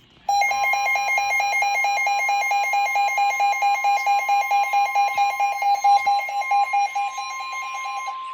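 Weather radio warning alarm: a loud steady electronic tone, overlaid by a rapidly pulsing electronic alarm beep that stops just before the end while the steady tone carries on. It is the alert that announces a tornado warning broadcast.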